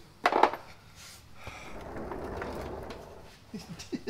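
A sharp knock about half a second in, then a mechanic's creeper rolling across a concrete floor as the man lying on it pushes out from under the truck.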